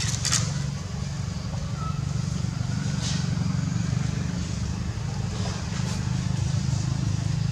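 Steady low rumble of a running engine, with a couple of short clicks right at the start.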